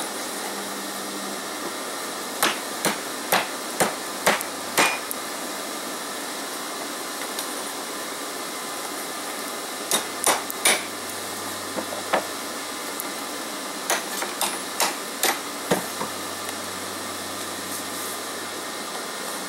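Hand hammer striking a red-hot steel strap as it is forged around a steel pipe held in a vise. Sharp metal-on-metal blows come in runs of three to six, with pauses of several seconds between runs.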